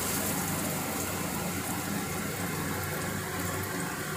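Chopped onions sizzling in hot oil in a stainless steel pan, a steady hiss over a low, steady hum.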